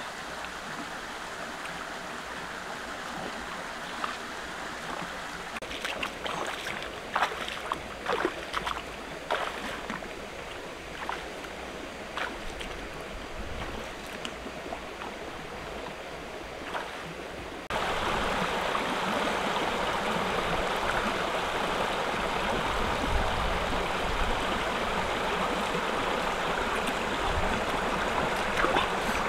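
Shallow, rocky stream flowing steadily, with a run of short splashes from feet wading through the water in the first half. About eighteen seconds in, the flowing-water sound suddenly becomes louder and then stays steady.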